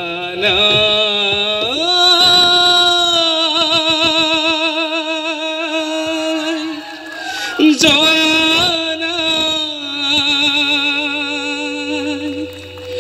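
A solo voice singing a slow song, holding long notes with wide vibrato and sliding between pitches; a new phrase begins about eight seconds in.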